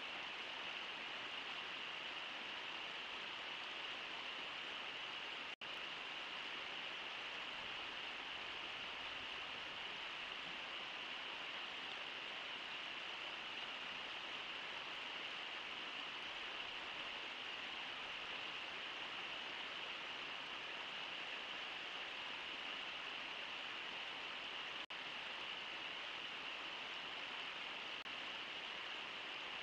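Steady rush of the Brooks River's water, an even hiss with no separate splashes. The sound cuts out for an instant twice, about five seconds in and near the end.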